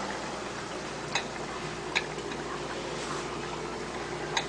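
Steady bubbling hiss of pots of hot water and hot oil on a stovetop, with three short, light clicks, about one and two seconds in and near the end.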